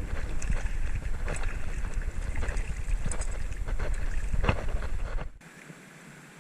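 Wind buffeting the microphone, a heavy rumble with scattered sharp crackles and splash-like noises over it, cutting off abruptly about five seconds in to a faint, quiet background.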